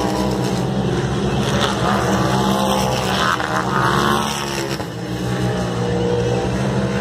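Turbocharged race UTV engines running around a dirt off-road track: a steady engine drone that dips briefly about five seconds in.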